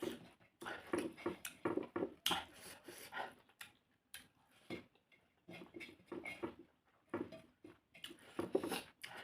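Close-up eating sounds: a person chewing and smacking their lips in short, irregular bursts, with a pause around the middle.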